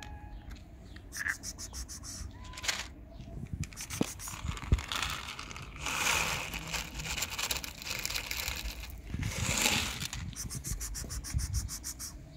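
Dry cat kibble rattling in a plastic bottle and poured out onto asphalt: bursts of quick rattling, with two longer spills about halfway through and again a few seconds later.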